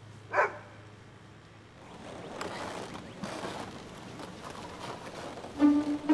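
A dog barks once, short and sharp, about half a second in. Then come rustling and light knocks while a vinyl garden gate is opened, and plucked-string music starts near the end.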